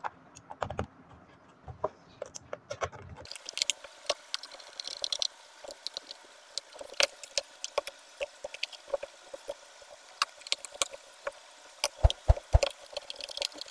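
Screws being driven back into a plastic switchboard cover by hand screwdriver: a run of irregular small clicks and ticks.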